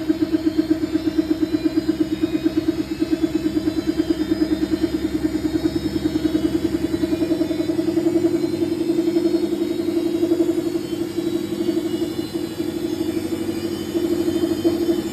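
Old Samsung washing machine on its intermediate spin, making an unusual loud steady hum that pulses rhythmically a few times a second as the drum turns.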